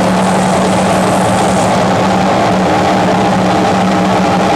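Loud, steady drone of live noise music: a constant low hum under a dense, harsh wall of noise that does not change.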